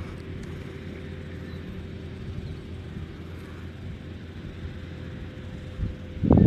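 Wind buffeting the microphone as a steady low rumble, with a faint steady hum behind it and a louder gust or bump about six seconds in.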